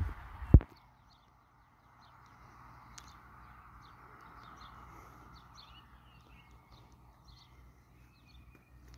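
A sharp knock about half a second in, then faint birds chirping over a soft, steady background hiss.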